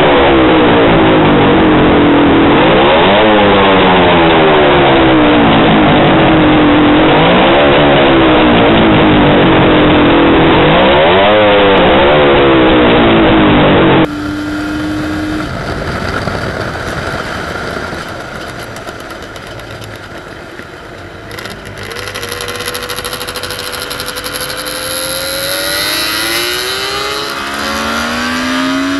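Suzuki GT 750's water-cooled three-cylinder two-stroke engine, revved at standstill in several throttle blips, its pitch rising and falling with each one. About halfway through, the sound changes to the same engine heard quieter from onboard while riding, with wind noise, its pitch climbing near the end as it accelerates.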